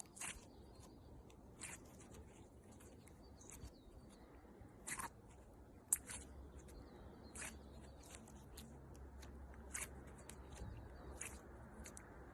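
Slime being handled, giving faint, irregular small pops and clicks, about one a second.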